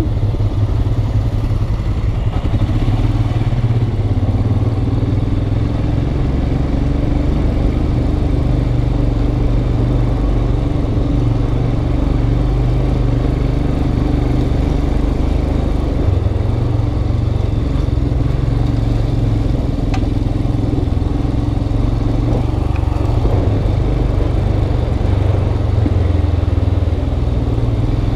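Motorcycle engine running at low, steady revs while the bike rides slowly over a rough dirt and rock track, heard from the rider's helmet.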